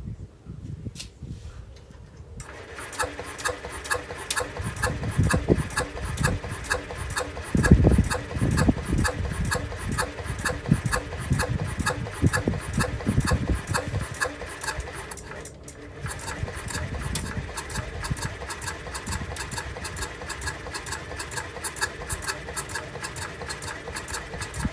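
Small moped scooter engine, after long storage, catching about two seconds in and running steadily with an even, rapid ticking.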